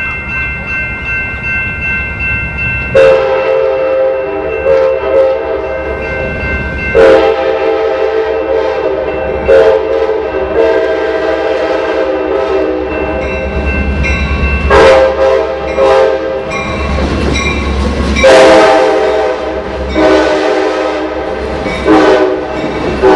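Passenger train horn blown over and over as the train approaches, in a run of long and short blasts with uneven gaps, the first loud one about three seconds in, over the low rumble of the passing train. A fainter, higher steady tone sounds before the first loud blast.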